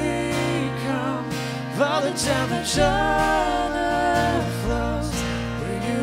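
Live acoustic band song: a wavering sung melody over acoustic guitar and violin, with sustained low bass notes that change every couple of seconds.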